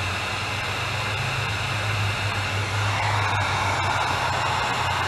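Electric heat gun running, its fan blowing a steady hiss over a low motor hum as it shrinks heat-shrink tubing over soldered wire splices. The hiss grows a little louder about three seconds in.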